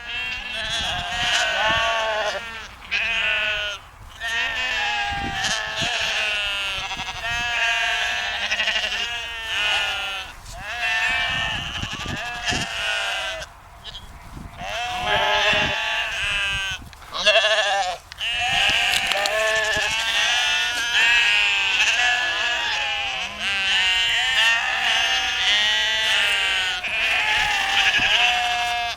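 A flock of sheep bleating, many voices overlapping in a near-continuous chorus with only a few brief lulls.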